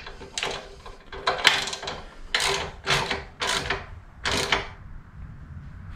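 Hand ratchet clicking through short tightening strokes, about one a second, snugging down the M8 bolts of a motorcycle luggage rack.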